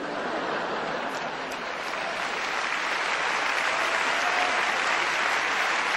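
Live audience applauding: a steady wash of clapping that grows slightly louder over the seconds.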